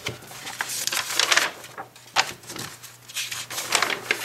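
Paper pages of a large picture book being turned and smoothed flat by hand, several rustles and slides of the paper.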